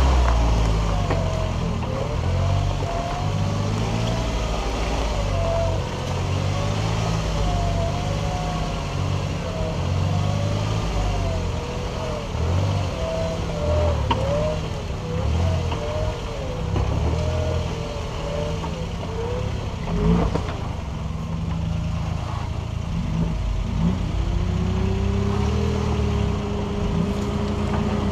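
Suzuki Jimny's engine crawling over a rough dirt track, its pitch wavering up and down as the throttle is worked. There is a single knock about twenty seconds in, and near the end the revs climb and hold steady.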